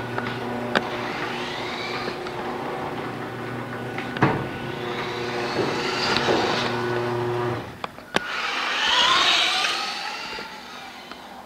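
Electric RC buggy's 15-turn 540 brushed motor whining in rising and falling sweeps as it speeds up and lets off three times, loudest near the end. A steady low hum underneath stops about three quarters of the way through, and there are a few sharp clicks.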